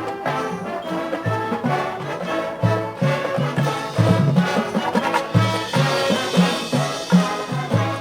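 Marching band playing its competition show: brass melody and chords over a steady low brass and percussion beat.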